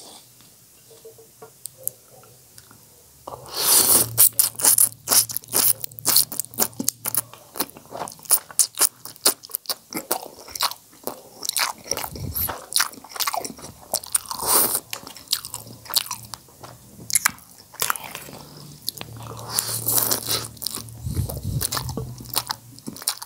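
A man slurping and chewing saucy instant noodles close to the microphone. It starts about three seconds in with a burst of rapid mouth clicks and smacks, then carries on in irregular waves of slurps and chews.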